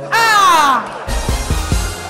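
A woman's loud, high-pitched cry that slides down in pitch. About a second in, a short logo sting takes over: a hissing rush with a few low thumps.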